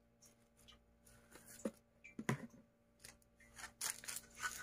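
Faint scattered ticks and clicks from a small plastic shaker of ground black pepper being shaken over raw chicken pieces in a ceramic dish, with a denser rustle about four seconds in.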